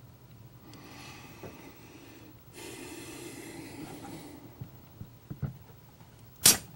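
A person's two long, noisy breaths close to the microphone, followed by a few small clicks and one sharp click near the end from small hand tools being handled on the workbench.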